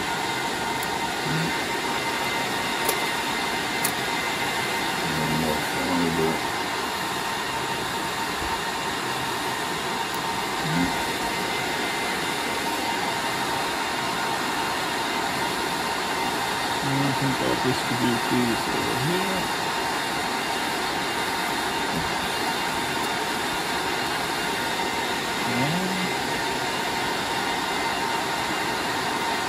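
Cooling fans of a rack of running network switch and server gear, a steady whir with a constant whine over it. A couple of small clicks come about three and four seconds in, as patch cables and transceivers are plugged into the ports.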